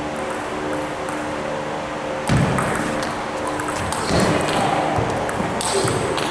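Table tennis rally: the celluloid ball clicks sharply off the paddles and table, with a heavy thud a little over two seconds in. A steady hum runs underneath.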